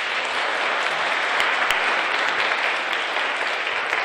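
Audience of schoolchildren applauding: steady, dense clapping after an award recipient is thanked.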